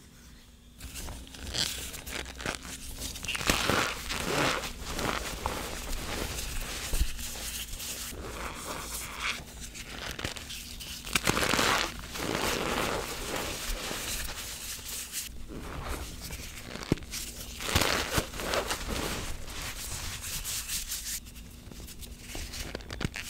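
Hands squeezing and crushing re-formed gym chalk in a bowl of cornstarch: soft powdery crunching and rubbing that comes in uneven squeezes a second or two long, with quieter gaps between.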